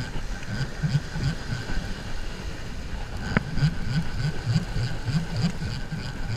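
Conventional revolving-spool fishing reel being cranked hard, its gears whirring in a quick rhythm of about three turns a second as line is wound in against a hooked fish. There is one sharp click a little over three seconds in.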